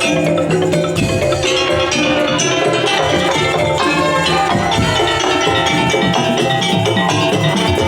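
Madurese daul (tongtong) percussion ensemble playing loud, continuous music, with drums and tuned struck percussion sounding together in a steady rhythm.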